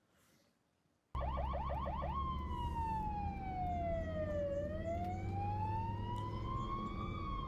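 Ambulance siren cutting in suddenly about a second in: a quick run of rapid rising yelps, then a slow wail that falls for about two seconds, rises for about two and a half, and starts to fall again. A steady low rumble runs underneath.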